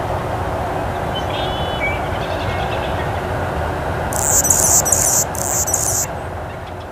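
Steady outdoor background noise, with a few faint chirps a second or two in, then a run of very high, buzzy calls repeating from about four to six seconds in.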